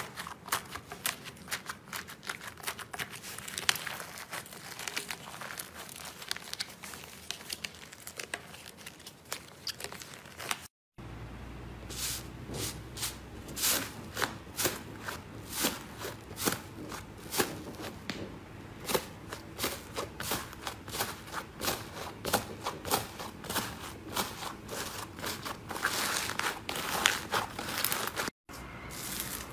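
Fingers pressing into and breaking the dried, hardened top crust of iceberg slime, a dense run of crisp crackles and crunches. The sound drops out for an instant twice, about a third of the way in and near the end.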